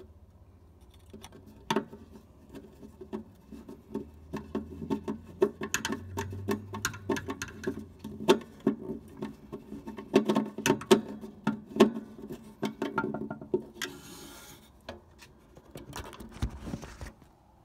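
Nut driver turning a hex-head screw to fasten a furnace igniter's sheet-metal bracket: a quick, irregular run of small metallic clicks and scrapes. Near the end there is a brief rustle and a few low bumps.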